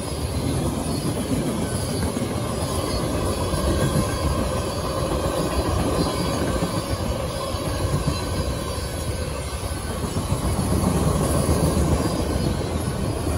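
Freight cars of a long mixed freight train (gondolas, tank cars, boxcars) rolling past, with a steady rumble of steel wheels on rail.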